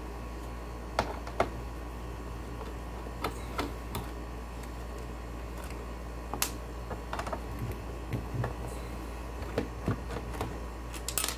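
Scattered light clicks and taps as the screws are undone on the plastic stand of an Acer G205HV LCD monitor and the stand is handled and lifted off. A steady low hum runs underneath.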